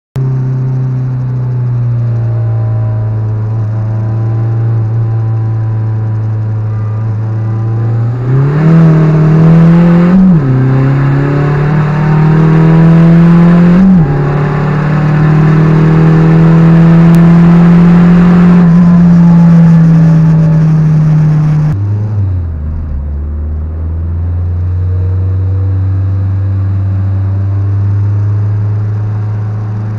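JTD turbodiesel engine heard from inside the car. It runs steadily at first, then pulls hard from about eight seconds in, the pitch climbing with two quick gear changes where it drops sharply. About twenty-two seconds in it eases back to a steady, lower cruise.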